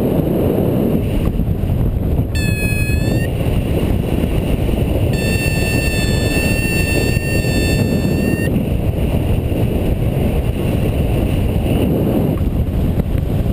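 Airflow rushing over the camera microphone in paraglider flight. It makes a heavy, steady rumble. Two high whistling tones cut through it, a short one about two seconds in and a steadier one lasting about three seconds in the middle.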